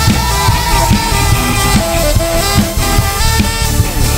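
Live worship band playing an upbeat instrumental passage: drum kit, bass and electric guitar driving a steady beat, with a horn line carrying the melody.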